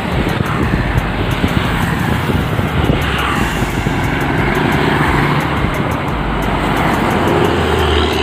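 Steady roadside traffic noise: motorcycles and a car passing close, with the engine of an approaching intercity bus.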